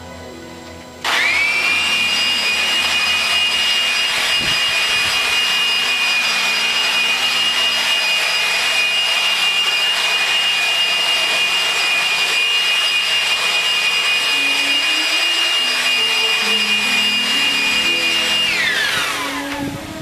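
Handheld corded electric leaf blower switching on about a second in, its motor spinning up at once to a steady loud whine over a rush of air, then shut off near the end and winding down with falling pitch.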